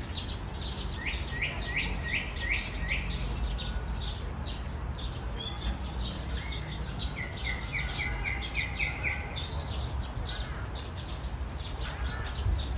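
Songbirds singing and chirping. One bird gives a quick run of about six short repeated notes twice, a few seconds apart, with scattered shorter chirps between, over a steady low background rumble.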